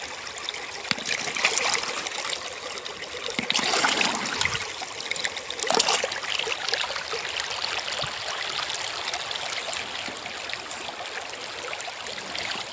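Shallow river water running and trickling close to the microphone, with louder splashes about one and a half, four and six seconds in as a hand stirs the water and lifts a pebble out.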